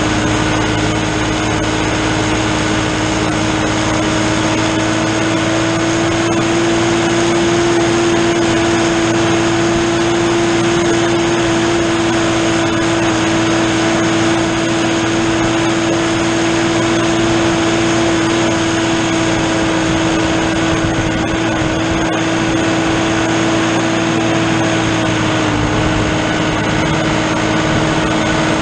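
New Holland TN70 tractor's diesel engine running steadily under load while driving a drum mower through standing hay. It makes a constant hum with one strong, steady tone.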